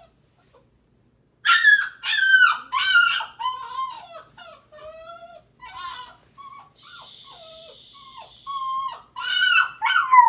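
Black Labrador puppy whining and crying: a string of loud, high cries that bend up and down in pitch, starting about a second and a half in, with softer whimpers between them and a steady hiss of about two seconds near the middle. It is a young puppy's distressed crying at bedtime.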